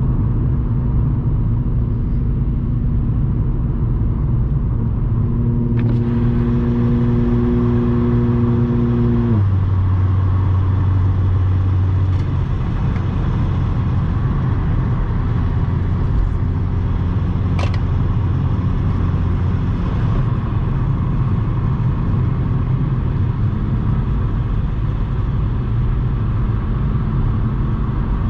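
Supercharged Audi S4's 3.0 V6 with AWE exhaust and test pipes, cruising and heard from inside the cabin: a steady low engine and exhaust drone with road noise. A few seconds in a higher steady note holds, then drops abruptly to a lower one about a third of the way through. Two brief sharp clicks are heard along the way.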